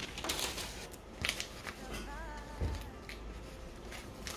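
Kraft paper bread bags with clear plastic windows rustling and crinkling as loaves are packed into them, with a soft thump about two and a half seconds in.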